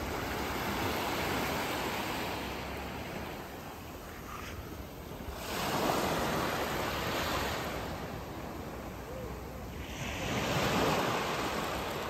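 Small sea waves washing up onto a sandy, pebbly beach and drawing back, the wash swelling and fading about three times.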